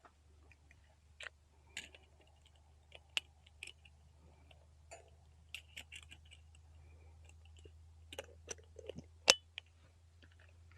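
Scattered light clicks and small knocks of cooking gear being handled while coffee is made, with one sharper knock about nine seconds in. A faint steady low hum runs underneath.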